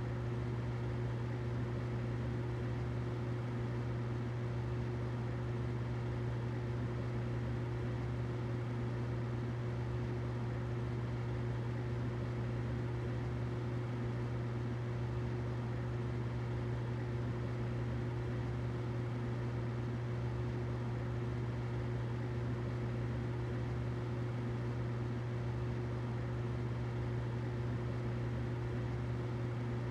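Humidifier running steadily: a constant low hum with a fainter higher tone over an even hiss.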